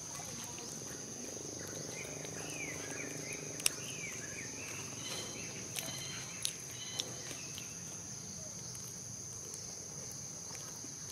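Steady high-pitched insect drone, with a few faint chirps in the first half and several sharp clicks a few seconds in.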